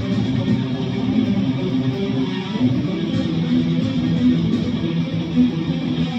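Guitar music: a guitar played steadily, its notes mostly low and mid-range.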